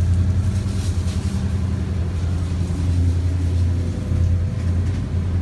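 Engines of a power yacht running steadily underway: a constant low drone heard from inside the galley.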